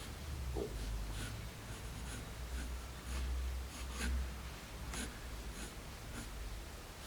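5B graphite pencil drawing on printing paper: short, separate scratchy strokes, roughly one or two a second, over a low rumble.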